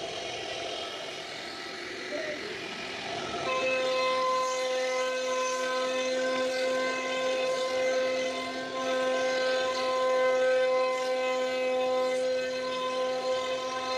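CNC router spindle whining at a steady pitch as its cutter carves grooves into a wooden door panel, with the hiss of wood chips under the whine. The whine grows stronger about three and a half seconds in.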